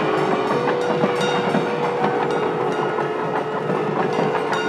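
Street din of a temple chariot procession: a dense crowd wash with repeated sharp strikes and a steady held tone.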